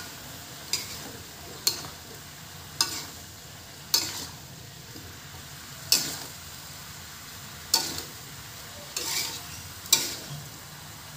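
Metal spatula scraping and knocking against a wok while napa cabbage is stir-fried, a sharp scrape every second or so at an uneven pace over a steady sizzle.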